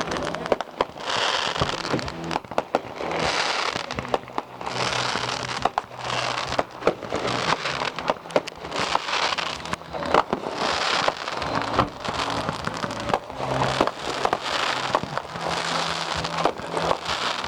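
Aerial fireworks bursting in quick succession: many sharp bangs with spells of crackling between them.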